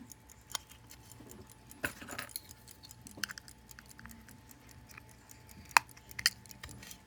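Small metallic clicks and clinks of a key-wind pocket watch and its little winding key being handled, a few scattered taps with the sharpest about six seconds in.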